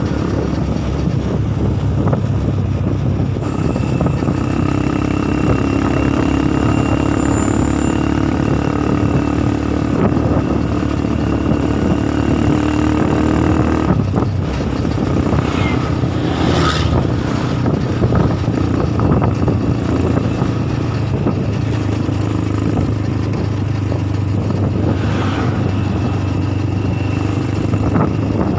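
Motorcycle engine running at a steady road speed, with road and wind noise and the engine of a bus travelling just ahead. A brief rushing sound comes about halfway through and again near the end.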